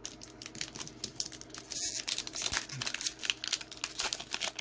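Foil wrapper of a Pokémon booster pack crinkling and tearing as it is pulled open by hand, with a dense run of crackles and a louder rip about two seconds in.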